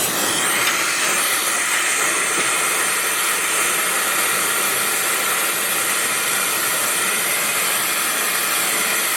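Oxy-acetylene torch with a rosebud heating tip burning steadily, heating a steel rivet to expand it in its hole before it is hammered into a head.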